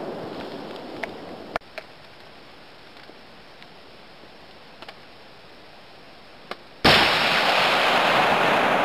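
.50-caliber rifle shots: the long rolling echo of one shot fades over the first second and a half. After a quieter stretch with a few faint clicks, a sudden loud blast comes about seven seconds in, and its rolling echo lasts to the end.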